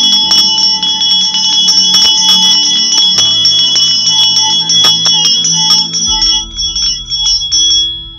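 Music led by ringing bell tones: bright chimes held over a low drone, with many quick light strikes, fading out near the end.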